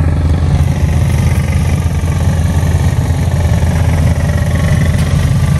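An engine running steadily, a low drone with a fast, even pulse.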